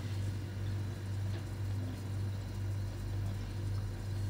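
Quiet room tone with a steady low hum and a faint click about a second in.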